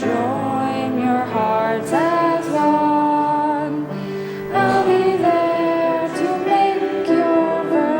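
A hymn being sung with instrumental accompaniment: held, sustained sung notes, mostly from female voices, over steady chords.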